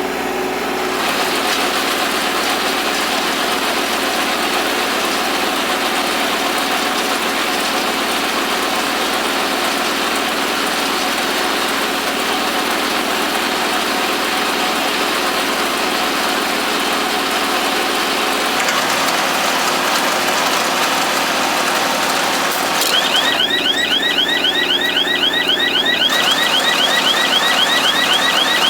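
Kubota L3200 compact tractor's three-cylinder diesel running steadily under load, driving a Farm Maxx mini round baler. Near the end a rapid, high, repeated chirping joins in.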